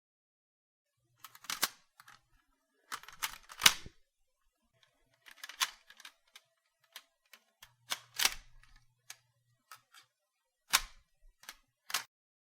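Firearm reloads: a series of sharp metallic clicks and clacks from a gun's action and magazine being worked. They come in short clusters of one to three clacks, a second or two apart, with silence between.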